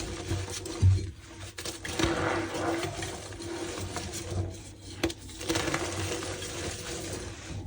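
Block of reformed gym chalk being crushed and crumbled by hand, with squeaks, crunches and a run of small crackles.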